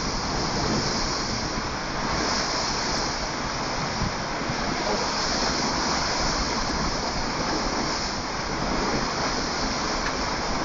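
Storm winds of around 90 mph blowing hard and steadily, a continuous rush of noise that swells in gusts a few times.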